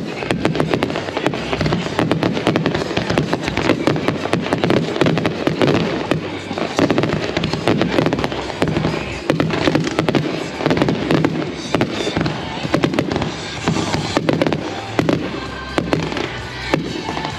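Consumer fireworks finale: many cakes and aerial shells firing and bursting at once in a dense, unbroken barrage of reports and crackle, with music playing underneath.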